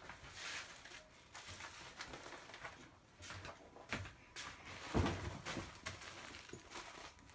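Balls of yarn being handled and set down on glass shelves: scattered soft knocks and rustles, with a louder thump about five seconds in.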